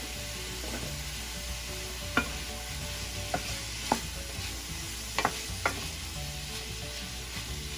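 Vegetables sizzling as they sauté in canola oil in a stainless steel skillet while a wooden spoon stirs them. The spoon knocks sharply against the pan about five times.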